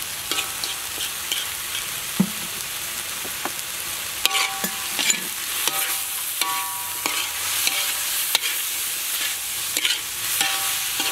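Beef, mushrooms and onion sizzling in a hot wok as a spatula stirs and tosses them. Frequent scrapes and knocks of the spatula against the wok come through the steady hiss, some with a brief metallic ring.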